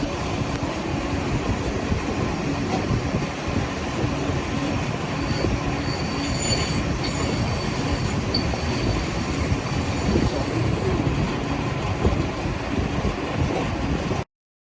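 C400K CNC lathe making a test cut in metal: a steady, rough cutting noise with faint high squeals in the middle. It cuts off suddenly near the end.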